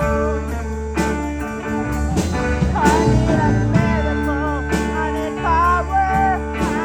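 Blues-style music with guitar over a steady low bass; about three seconds in, a wavering, bending melody line comes in on top.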